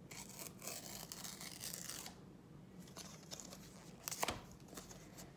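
A Lego trading card being torn up by hand: faint tearing and rustling, with a short lull about two seconds in and one sharp click about four seconds in.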